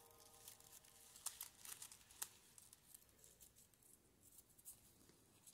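Faint rustling and crinkling of crepe paper being handled by fingers, with a few soft sharp ticks about a second and two seconds in.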